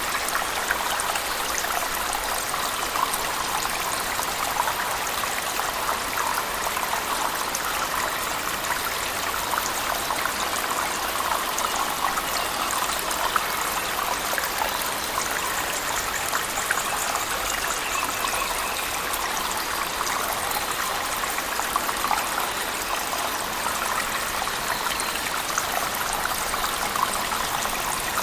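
Cave waterfall and heavy rain: a steady, unchanging wash of splashing water with a fine patter running through it.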